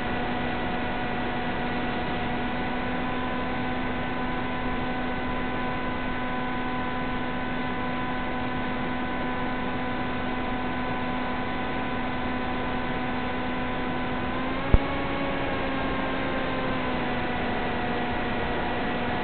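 Steady electrical hiss with a constant buzzing hum on the audio of an analogue FPV video-link recording. A single sharp click comes about fifteen seconds in, and the hum's pitch wavers up briefly after it.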